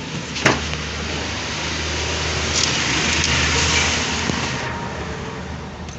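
Smart car's engine running with a steady low hum. A sharp click comes about half a second in, and a hiss of rushing air swells in the middle and fades before the end.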